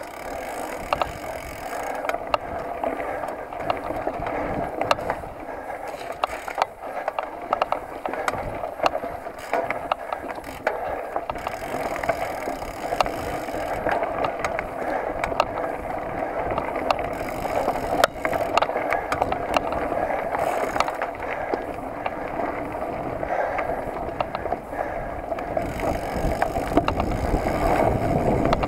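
Mountain bike rolling fast down a dirt trail: steady tyre and riding noise with frequent sharp clicks, knocks and rattles from the bike jolting over the rough ground, growing somewhat louder near the end.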